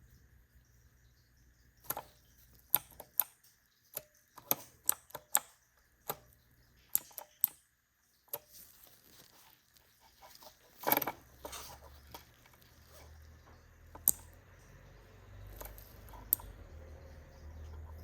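Keycap keyring switches being pressed: a run of sharp, irregular clicks, then a longer rattle about eleven seconds in and a few single clicks near the end.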